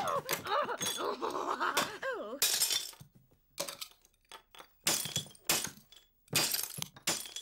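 Cartoon sound effects of doll's-house crockery being smashed and the hard ham being beaten with fire tongs. A few high gliding squeaks come first, then an irregular run of about a dozen sharp crashes and knocks over the last five seconds.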